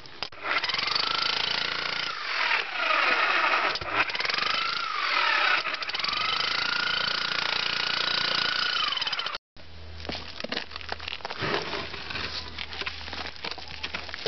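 Electric demolition hammer chipping through concrete with a chisel bit, the motor's pitch rising and falling as the bit bites and frees. It stops abruptly about nine seconds in, leaving a quieter low hum with scattered light taps.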